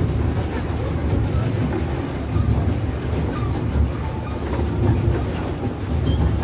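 Steady low rumble and wash aboard a pedal-powered swan boat moving across the water.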